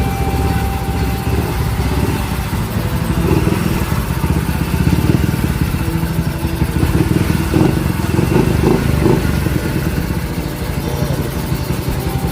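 A freshly overhauled Yamaha Mio i125 scooter's single-cylinder four-stroke engine running steadily.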